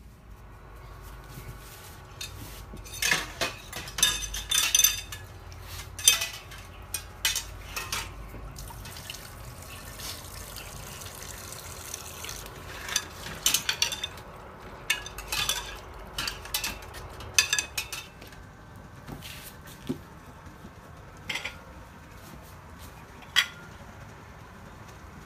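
Kitchen utensils clinking and scraping against dishes and pots in irregular clusters of short clatters, with a few sharper knocks standing out.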